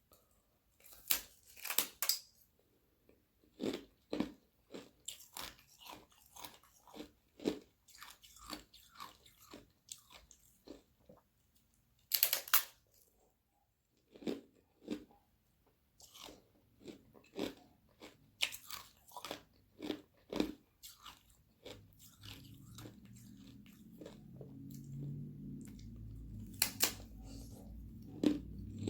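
Sheets of frozen carbonated water being bitten and chewed close to the microphone: loud crunching bites about a second in, around twelve seconds and near the end, with a run of smaller crunchy chews between them. A low background hum comes up over the last several seconds.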